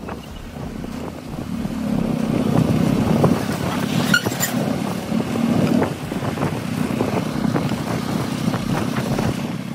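Motorcycle being ridden at low speed: the engine running under a dense rumble of wind and road noise, louder for a few seconds in the middle.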